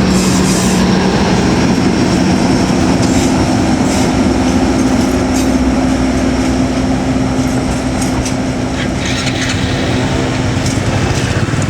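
KAI Taksaka passenger train running along the track: a steady locomotive engine hum over a dense rumble of wheels on rail, with scattered faint clicks.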